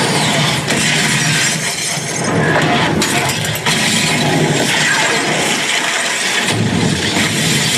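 Film sound effects of a house being blown apart: a loud, dense, continuous crash of shattering glass and breaking debris.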